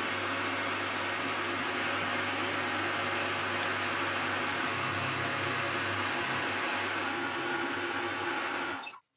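Milling machine running steadily, its end mill cutting a pocket through a brass hammer head, with a low hum under the cutting noise. The sound cuts off abruptly near the end.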